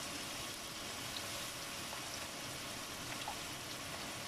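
Chicken masala with a thin tomato, soy, chili-sauce and vinegar sauce sizzling and bubbling in a wok: a steady hiss with a few small pops.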